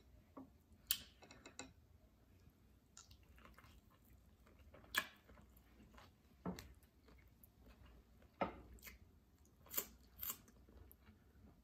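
Eating sounds: soft wet chewing of sauce-coated food, broken by a handful of sharp lip-smacking clicks.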